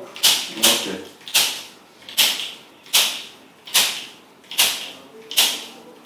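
Handheld spring-loaded chiropractic adjusting instrument (activator type) firing against the patient's spine, eight sharp clicks: a quick pair, then about one every 0.8 s as it is moved along the back.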